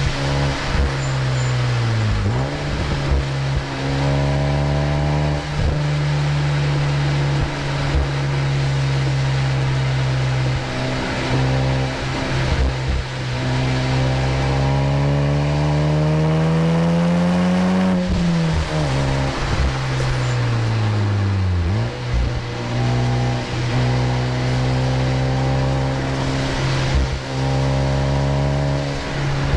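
A Honda Civic Type R FK8's 2.0-litre turbocharged four-cylinder engine is heard from inside the cabin as the car is driven hard around a wet track. The revs hold, then climb steadily for several seconds. They drop sharply and fall away as the car slows for a corner, with brief dips at the gear changes, over a steady hiss.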